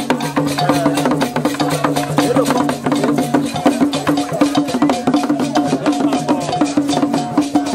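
Traditional vodoun ceremonial music: dense, fast percussion with a short pitched phrase repeating over it.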